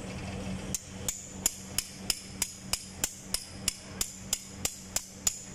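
Hand hammer striking the steel lock fitting on a boom truck's wire rope cable, to drive the lock home on the cable. It is a steady run of sharp, ringing metal-on-metal strikes, about three a second, starting just under a second in.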